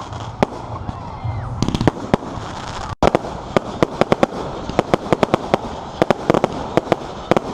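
Fireworks going off: a few separate sharp bangs, then, after a brief break about three seconds in, a rapid crackling run of cracks, several a second.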